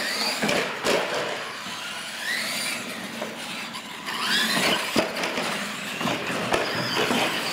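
Radio-controlled monster trucks racing on a concrete floor: their motors and gears whine, rising and falling in pitch as they speed up and slow down, over tyre noise. Several sharp knocks come as the trucks hit ramps and land.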